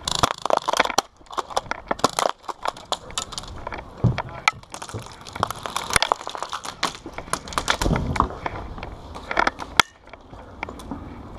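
Irregular dry crunching and sharp cracks: footsteps on dry grass and dirt, with tactical gear knocking and scraping against plywood barricade walls.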